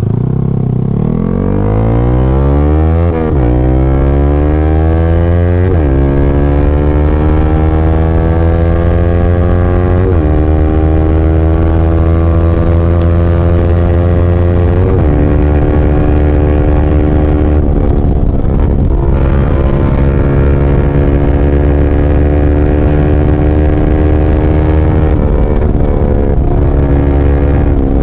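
Yamaha R15 V3's 155 cc single-cylinder engine through a LeoVince GP Corsa carbon short exhaust, accelerating hard through the gears. The pitch climbs and drops back at each of four upshifts in the first fifteen seconds, then holds nearly steady in fifth gear at speed.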